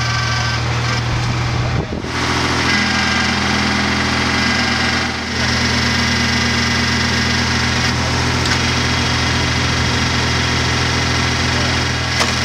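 Tractor engine running steadily, driving a tractor-mounted hydraulic log splitter, with brief dips about two and five seconds in.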